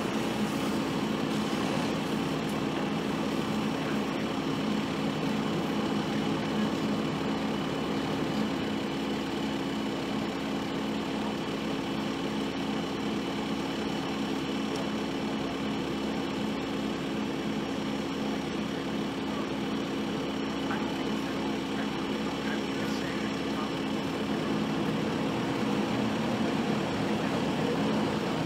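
A heavy engine idling steadily: an even, low drone that holds the same pitch throughout, with no revving.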